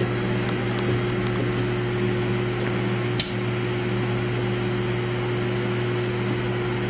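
Microwave oven running with aluminium foil inside: a steady hum, with a few faint ticks and one sharper snap about three seconds in.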